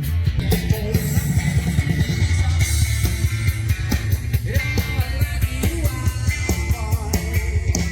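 Live rock band playing loudly, with drum kit, bass and electric guitar keeping a steady beat.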